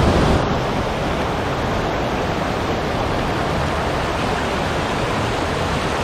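Mountain stream rushing over rocks and small cascades: a steady, even rush of water, slightly louder for the first half second.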